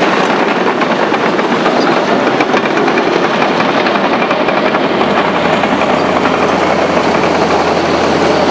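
Loud, steady mechanical clatter and rumble of heavy machinery, with a low hum coming up about five seconds in.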